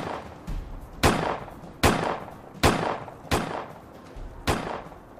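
A steady series of sharp, loud bangs, about one every 0.8 s, six in all, each dying away over about half a second.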